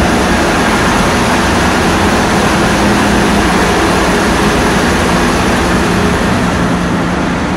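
Steady, loud drone of a tugboat's diesel engines under way, with a constant rushing noise over it and a low hum that holds one pitch.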